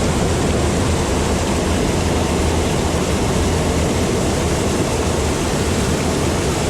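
Waterfall pouring, a loud, steady rush of water with a deep low rumble underneath.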